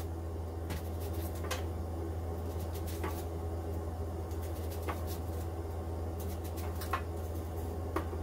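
A kitchen knife slicing through an onion held in the hand, with onion slices dropping into a stainless steel tray: about six short, sharp clicks spaced irregularly a second or two apart, over a steady low hum.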